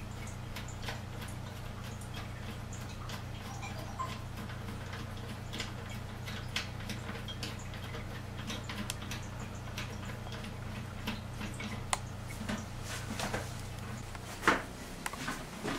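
Small irregular plastic clicks and ticks from a toilet seat's plastic hinge nut being turned by hand under the bowl rim, over a steady low hum. A louder knock comes near the end.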